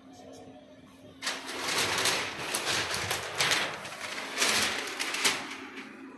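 Sheet of butter paper rustling and crackling as it is handled, starting about a second in and going on in uneven surges.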